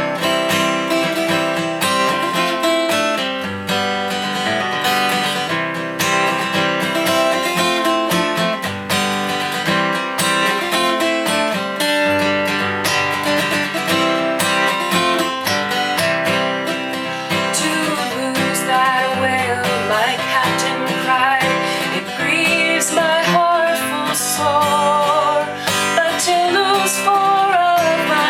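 Steel-string acoustic guitar strumming a folk-song accompaniment with no vocals at first; about two-thirds of the way through, a woman's singing voice comes in over the guitar.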